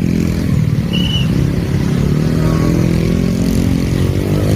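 Road vehicle engine running close by, its pitch slowly rising and falling as it revs, with a brief high beep about a second in.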